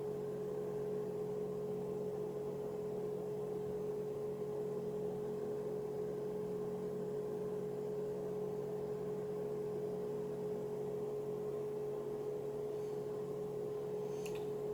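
Steady electrical hum with one clear, unchanging tone, and a few faint clicks near the end.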